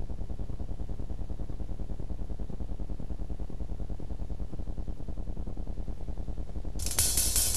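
Steady low electrical hum with a fast buzzing pulse. About seven seconds in, a brighter hiss comes up over it.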